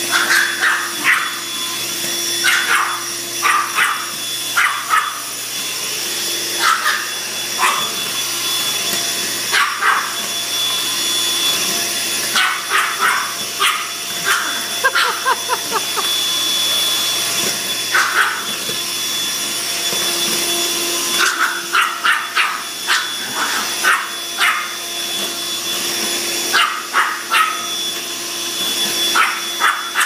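Small corded stick vacuum cleaner running with a steady motor whine while a chihuahua barks at it in short bursts, again and again.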